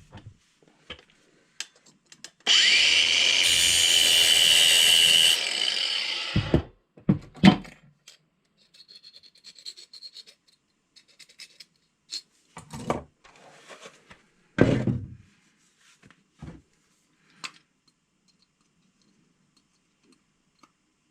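Battery-powered angle grinder running for about three seconds, grinding the worn-down tip of a small 1.5 mm Allen wrench to resurface it, then spinning down. A few knocks and clicks of handling follow.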